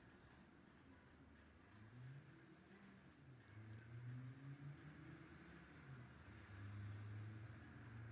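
Faint scratching of a pencil on paper: short strokes as the outlines of a drawing are gone over. Underneath, a faint low hum wavers in pitch and swells twice.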